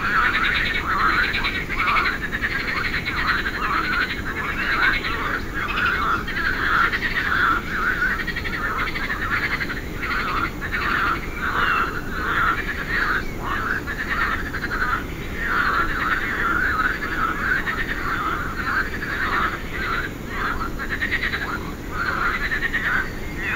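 A chorus of many frogs calling, rapid pulsed calls overlapping without a break, over a steady low background noise.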